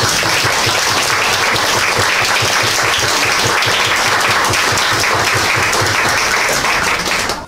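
Audience applauding steadily, a dense patter of many hands clapping that cuts off abruptly near the end.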